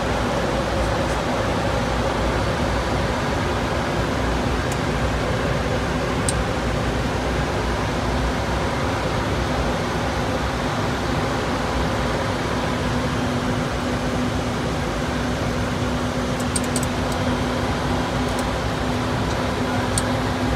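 Steady flight-deck noise of a Dornier 328Jet in flight: an even rush of airflow and ventilation with a low steady hum, which grows stronger about two-thirds of the way through.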